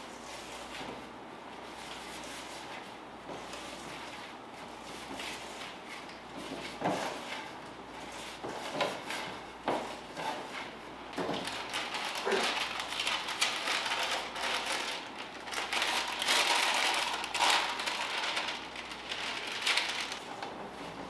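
A hand squeezing and rubbing crumbly pâte sucrée dough (flour being worked into creamed butter, sugar and egg yolk) in a stainless steel bowl: irregular soft crackling, crunching and scraping. It starts faint and grows louder and busier in the second half.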